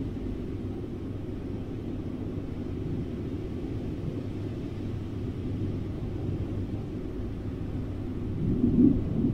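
Steady low rumble, swelling briefly near the end.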